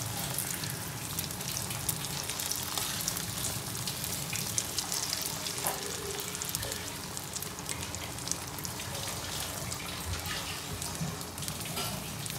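Beaten egg omelette batter frying in hot refined oil in a frying pan: a steady sizzle with fine crackles.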